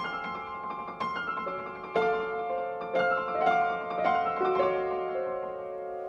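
Solo piano playing a song accompaniment: notes struck about once or twice a second over held chords in the middle range.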